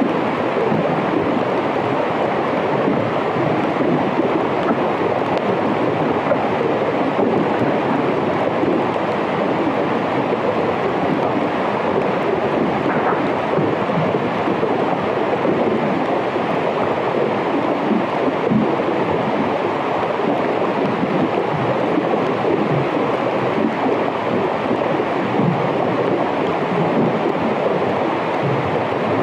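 Underwater hydrophone recording of melting glacier ice in an Arctic fjord: a dense, steady crackling and fizzing as ice melts.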